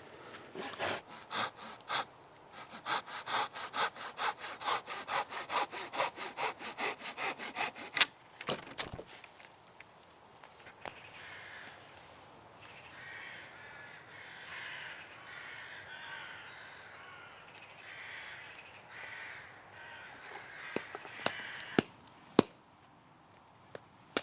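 A hand saw cutting wood in steady back-and-forth strokes, about three a second, for the first eight seconds. Fainter calls follow, then a few sharp snaps near the end.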